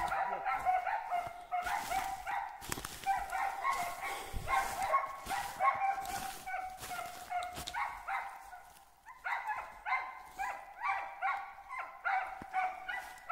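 Hunting dogs barking at a squirrel they have found in the trees, about two to three barks a second, with a short lull about nine seconds in.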